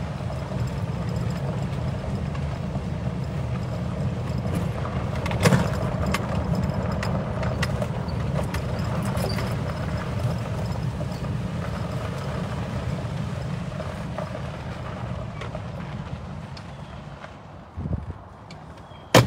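Small roofed utility vehicle driving along a dirt track: a steady low rumble from the vehicle and its tyres, with scattered light rattles. The rumble eases off near the end as it pulls up, then comes a thump and a sharp click.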